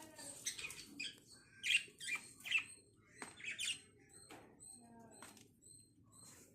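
Lovebirds chirping: short, sharp calls every half second or so. A faint run of evenly spaced high peeps comes in near the end.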